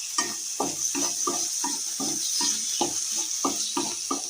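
Chopped tomatoes sizzling in hot oil in a kadhai as they are stirred, the pan scraped about three to four times a second over a steady frying hiss.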